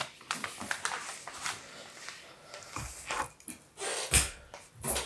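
Rustling and handling noise of paper and clothing as a school bag is slung onto a shoulder, with three dull thumps in the second half.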